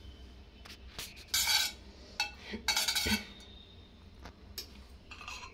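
A metal spoon clinking and scraping against a stainless-steel kadai as ghee is scooped off it into the pan: a few short scrapes, the loudest about a second and a half in and about three seconds in, with separate clicks between.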